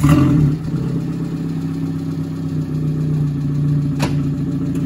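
Peugeot 106 Sport's 1.4-litre four-cylinder petrol engine at low revs as the car moves off slowly: a brief lift in revs at the start, then a steady engine note. A single short click comes about four seconds in.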